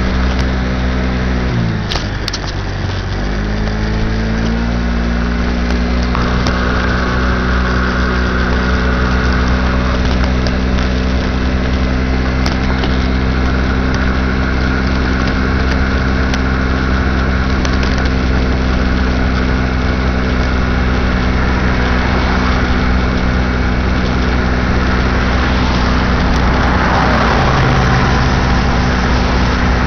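2006 Baja SC50 moped's small engine running while under way. Its pitch drops sharply about two seconds in, climbs back over the next two seconds, then holds steady. A steady hiss of road and wind noise runs underneath.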